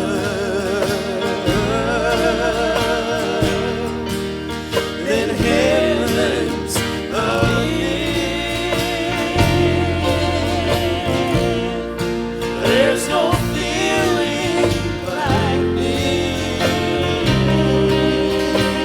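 Live gospel music: band accompaniment with a singer's long, wavering held notes.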